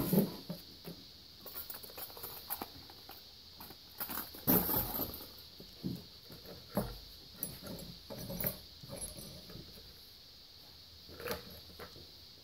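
Scattered light scrapes, taps and clinks of debris and small tools being cleared off a workbench by hand, coming irregularly every second or so.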